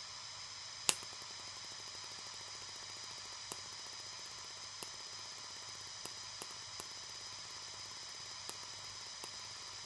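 Smoke generator of a Märklin Union Pacific Mikado model steam locomotive running with a faint steady hiss while the engine stands still. A sharp click comes about a second in, followed by several fainter clicks.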